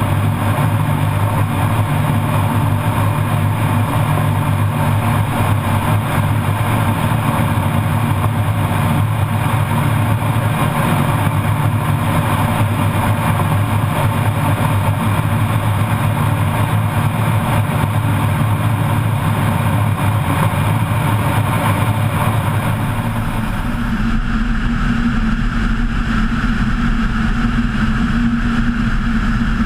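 Kitfox IV floatplane's engine running steadily at a loud, even level, its sound changing abruptly about 24 seconds in.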